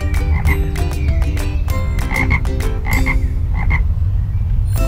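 A frog croaking in a string of short calls, often two in quick succession.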